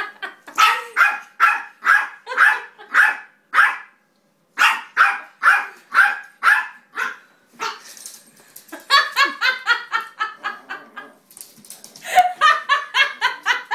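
Dog barking over and over, about two barks a second, with a short break about four seconds in. From about nine seconds in the barks give way to quicker runs of short, pitched calls.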